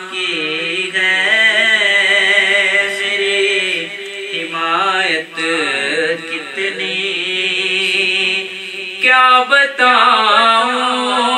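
A naat, an Urdu devotional poem, sung in long wavering melismatic notes over a steady low drone. A louder new phrase starts about nine seconds in.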